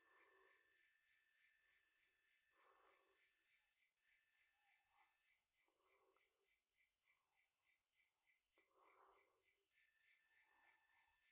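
Faint, high-pitched rhythmic chirping, about three to four even pulses a second, typical of a night-singing insect; softer, lower sounds come and go every few seconds underneath.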